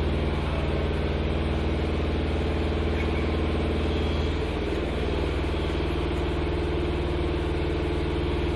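An engine running steadily at idle with a low hum, its pitch shifting slightly about four and a half seconds in.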